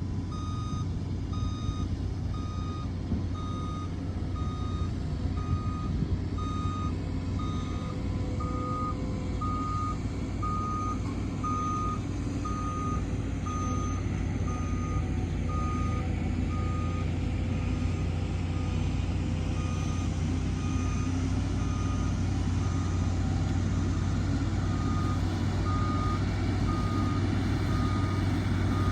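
Reversing alarm on heavy earthmoving machinery beeping steadily at about one beep a second, with a short pause partway through, over a diesel engine running steadily.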